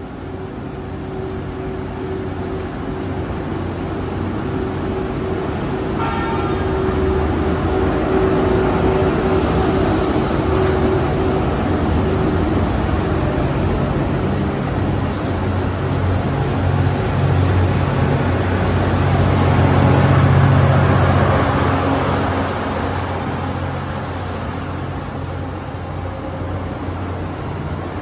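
EF81 electric locomotive pulling a train of E26 sleeper cars out of a station and rolling past, with a steady low hum under the running noise. The noise grows to a peak about twenty seconds in as the cars go by, then eases.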